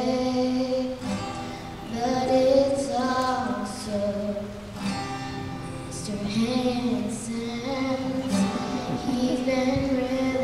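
A female voice singing a slow song to acoustic guitar, in held phrases of a second or two with short breaths between them.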